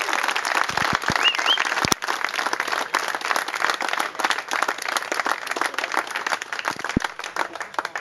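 Crowd clapping and applauding, the clapping thinning out and fading toward the end.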